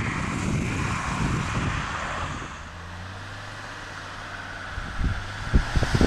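Off-road 4x4 engine running, easing to a steady low hum about halfway through, with a few knocks near the end.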